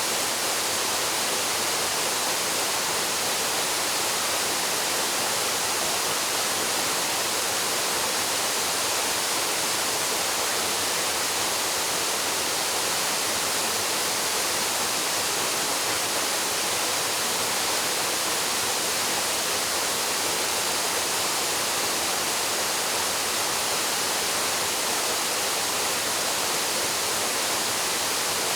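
Waterfall plunging into a pool, a steady, even rush of falling water with no breaks.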